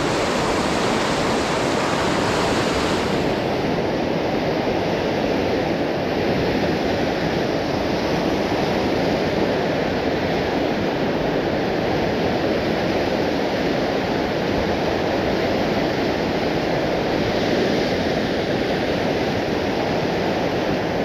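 Whitewater river rapids rushing steadily over rocks, a loud, even wash of water.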